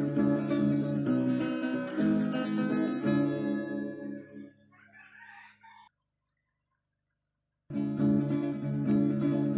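Background guitar music. It fades out about four seconds in, drops to dead silence for nearly two seconds, then starts again abruptly near the end.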